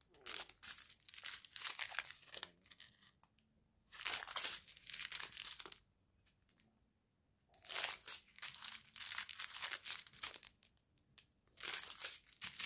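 Small sealed plastic sachets of round diamond painting drills being handled close up: the plastic crinkling under the fingers, in four bouts with short pauses between.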